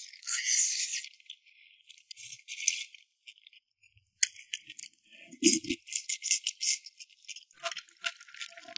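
Crisp fried food being crunched and chewed close to the microphone: rapid crackly crunches in several runs with short pauses between them.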